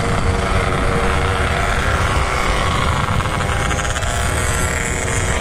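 Motorcycle engine running at riding speed, with a steady low wind rumble on the microphone.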